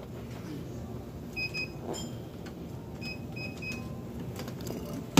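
Supermarket checkout barcode scanner beeping as items are scanned: short high beeps, a pair about one and a half seconds in and a quick run of three or four a second later, with one higher-pitched beep between.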